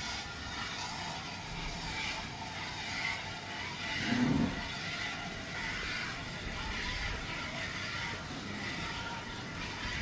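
Cow being milked by hand: milk streams squirting into a steel bucket in a steady, loosely rhythmic hiss. A short, low sound stands out about four seconds in.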